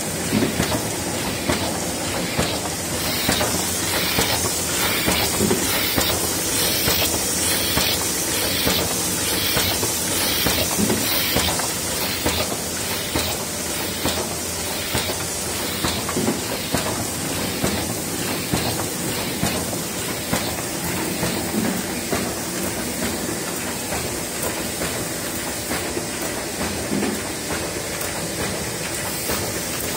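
Miehle Roland Parva single-colour sheet-fed offset press running while it feeds and prints cardstock sheets: a steady mechanical clatter of rapid, even clicks over a constant hiss.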